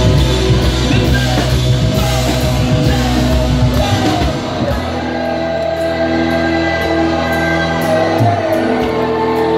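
Live band playing loud, with drums, guitar and banjo under a singer's voice and shouts. About halfway through the drums drop out, leaving held chords under the voice.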